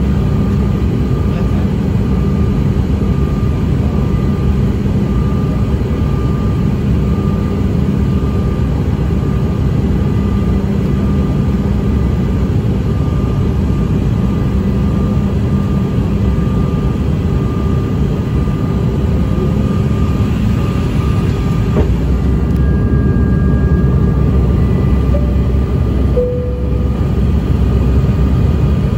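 Cabin noise of a CRJ-900 airliner in descent: the steady drone and hum of its rear-mounted General Electric CF34 jet engines over rushing airflow, with a thin steady whine on top. About three-quarters of the way through the low rumble grows louder.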